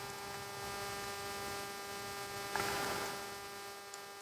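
Steady electrical hum, several fixed tones over a faint hiss, with one faint soft sound about two and a half seconds in.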